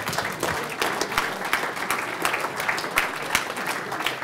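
Audience applauding: many people clapping at once, held steady.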